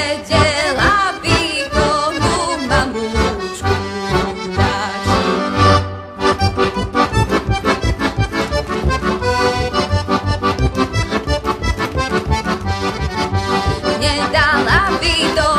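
Heligónka, the Slovak diatonic button accordion, playing an instrumental folk-tune passage between sung verses. There is a brief break about six seconds in, then a fast, steady bass-and-chord beat.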